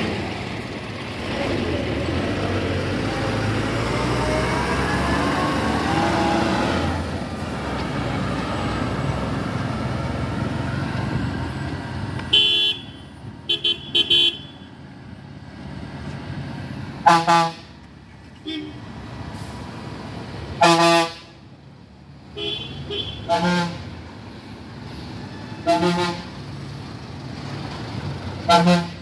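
Heavy truck engines running close by with a rising engine note, followed by vehicle horns honking again and again: a quick run of short toots about twelve seconds in, then about five longer honks spread over the rest.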